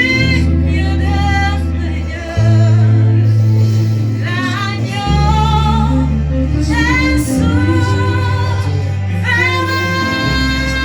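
Gospel worship song: a woman singing long held lines with vibrato over sustained bass notes that change every couple of seconds.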